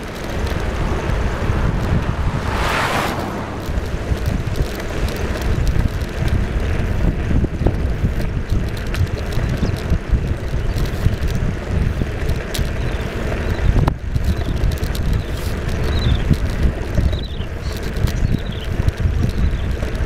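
Wind buffeting the microphone of a camera moving along a road, a steady low rumble, with a brief louder rush about three seconds in.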